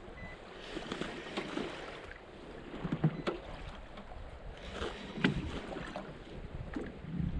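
Wind buffeting a head-mounted camera's microphone, with a few sharp knocks, the loudest about three and five seconds in.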